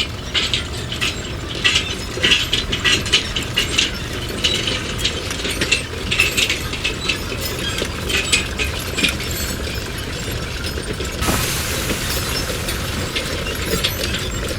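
Rapid, irregular metallic clicking and clattering over a steady low machine hum, giving way to a steadier hiss about eleven seconds in.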